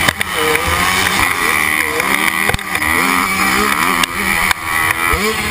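Yamaha YZ125 125cc two-stroke motocross engine revving up and down repeatedly as it is ridden hard on the race track, heard from the rider's helmet. The engine note drops sharply a few times, about two and a half, four and four and a half seconds in.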